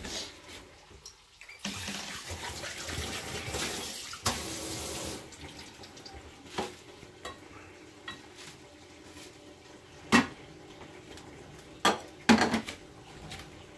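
Kitchen tap running for about three and a half seconds, starting a couple of seconds in, as water is taken to wet the hands. Then a few sharp knocks of dishes or utensils, the loudest near the end.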